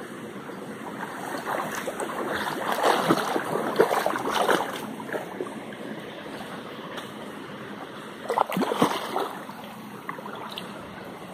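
Shallow rocky stream running, with a few seconds of irregular splashing in the water starting about one and a half seconds in and a shorter bout of splashing about eight seconds in.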